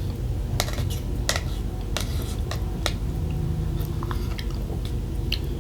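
A person chewing and eating close to the microphone, heard as irregular crisp clicks and smacks over a steady low hum.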